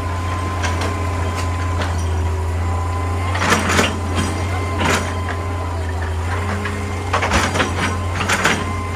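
Excavator diesel engine running steadily with a thin steady whine, while irregular clanks and scrapes of rock sound in two clusters, about a third of the way in and again toward the end.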